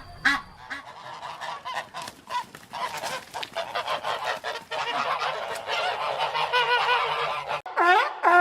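A flock of geese honking, many short calls overlapping. The sound cuts off sharply about three-quarters through, and a few louder single calls follow near the end.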